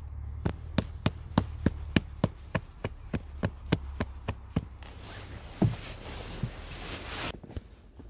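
Even, rapid mechanical ticking, about three ticks a second, over a low steady hum. Both stop after about four and a half seconds. Then a couple of seconds of hissing rustle follow and cut off sharply.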